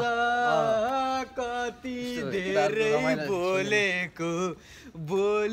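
Men's voices singing a melody, holding long level notes that step from pitch to pitch.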